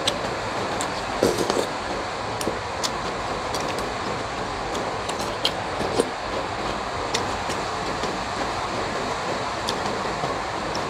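Heavy rain pouring steadily, with scattered light clicks of chopsticks and a spoon against the bowl.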